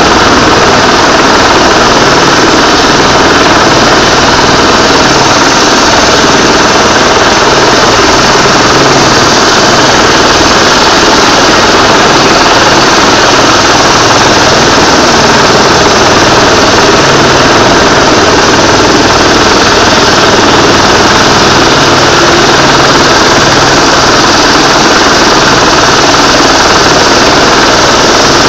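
Rescue helicopter hovering close by: a loud, steady din of turbine and rotor, with a choppy low beat from the blades underneath.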